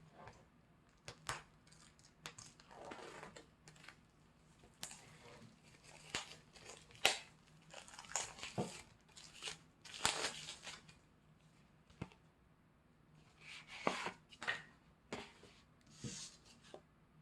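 Album packaging and its paper and plastic contents being handled: irregular rustling, crinkling and tearing with scattered sharp taps and clicks.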